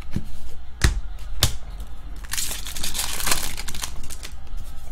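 Trading cards and a foil pack wrapper being handled: a few sharp clicks and taps of cards in the hands, then about a second of crinkling and rustling around the middle, with small ticks after.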